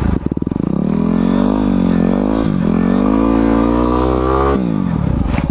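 Single-cylinder dirt bike engine revving hard in surges, its pitch climbing and dipping a few times, then dropping suddenly as the throttle is shut about four and a half seconds in.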